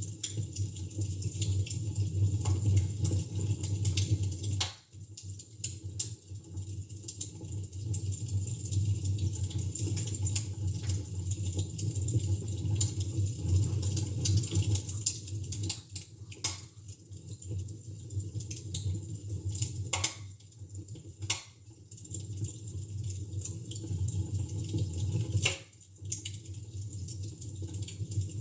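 Wood fire in a fireplace crackling: a steady low rumble with scattered sharp pops and snaps, a handful of them louder.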